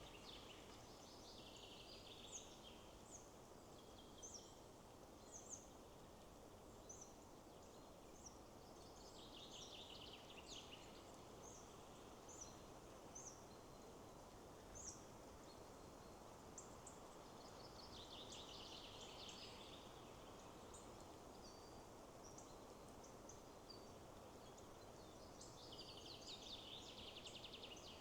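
Wind rushing steadily through trees while songbirds call: short high chirps about once a second, and a fast trilling song that comes back about every eight or nine seconds.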